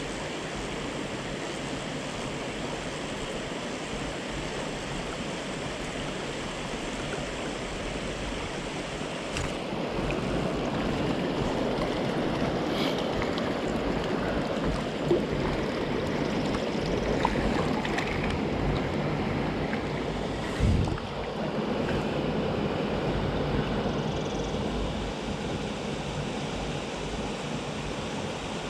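Mountain stream water running steadily over rocks, getting a little louder about ten seconds in. A few brief knocks sound over it, with a dull low thump a little past twenty seconds.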